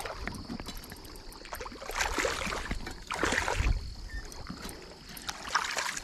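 A hooked catfish splashing and thrashing at the surface as it is pulled in to the bank, in three bursts of splashing, the last near the end.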